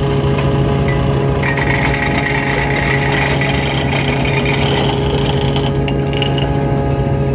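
Loud, steady machinery drone with a fast rattling, with a brighter grinding whine from about one and a half to five seconds in.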